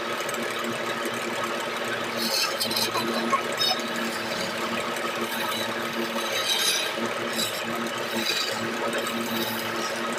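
Wood lathe running with a steady hum while a hand-held turning chisel cuts into a spinning gamari-wood stair post, the scraping of the cut swelling in short bursts several times.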